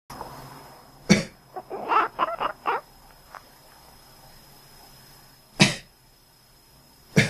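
A person coughs about a second in and a cat answers with a quick run of short quacking calls. The person coughs again a little after five seconds and once more at the very end.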